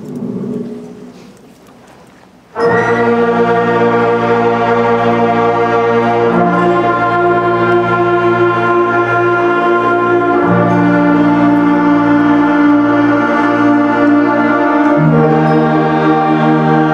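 Concert band of wind and brass instruments playing a slow chorale: full sustained chords entering together about two and a half seconds in, then changing to a new held chord roughly every four seconds.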